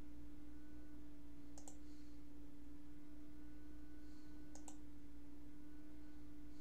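Two faint double clicks, about three seconds apart, over a steady low hum.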